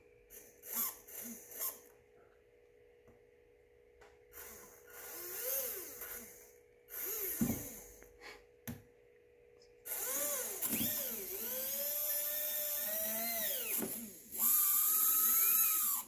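Small electric RC motor, run through an ESC waterproofed with Plasti Dip and held underwater, whining in several throttle bursts whose pitch rises and falls. Near the end it cuts off abruptly, which the owner puts down to a motor wire coming loose.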